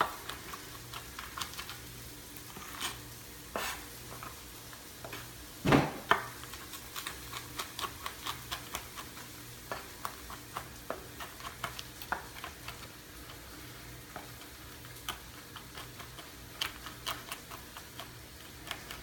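Chef's knife chopping nuts on a cutting board: irregular quick taps and clicks of the blade striking the board, with one heavier thump about six seconds in.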